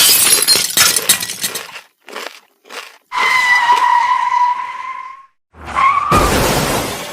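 A string of sound effects: a crash of breaking and shattering lasting about two seconds, two short hits, then a steady high screech for about two seconds like skidding tyres. A second short squeal runs into another loud crash near the end.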